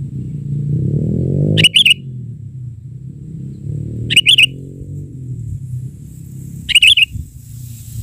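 Sooty-headed bulbul calling: three short, bright chirping bursts about two and a half seconds apart, over a low droning sound that rises in pitch twice.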